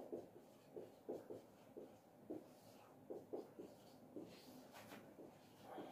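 Faint marker pen writing on a whiteboard: a quick series of short squeaky strokes, about two a second.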